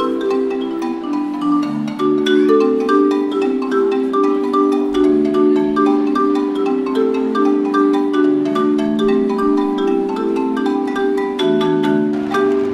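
Live marimba playing a quick, busy run of mallet notes over drums, as dance music. The music stops right at the end.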